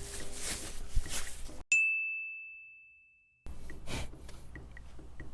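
A single bright ding, an edited-in sound effect, struck about a second and a half in against dead silence and fading away over about a second. Faint room noise with a few small clicks comes before and after it.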